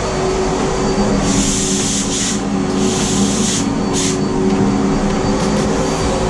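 HVLP spray gun hissing in three bursts as its trigger is pulled, laying a coat of bathtub refinishing coating; the last burst is short. A steady machine hum runs underneath.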